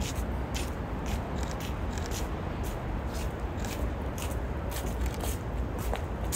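Rustling and scratching as a handheld phone camera is handled and rubbed against a wool coat: short, irregular crisp scratches over a steady low rumble.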